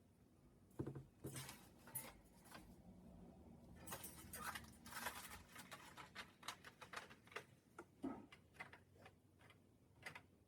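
Faint scratching, tapping and shuffling of a cockatiel's claws and beak on cardboard as it moves about inside a cardboard nest box, in irregular clusters of small clicks.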